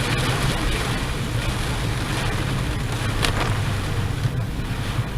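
Steady roar of a torrential rain downpour, with a low rumble underneath.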